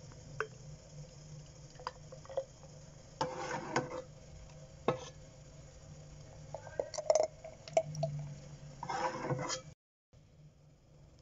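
Thick hot orange marmalade poured from a metal pan into a glass jar, with sharp clinks of metal and glass and two short spells of pouring, about three seconds in and again near the end.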